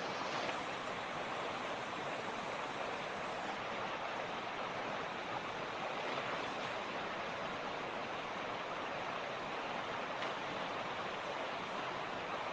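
Mountain creek water rushing and splashing over rocks in a steady, unbroken stream.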